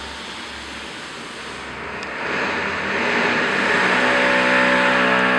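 Music: a rushing swell of noise that grows louder about two seconds in, then sustained distorted guitar-like chords coming in near the end.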